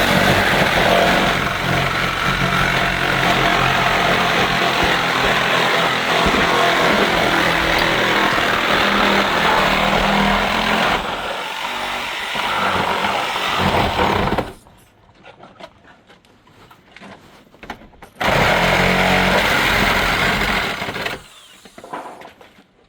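A power saw cutting through the wall framing, running for about fourteen seconds, stopping, then running again for about three seconds.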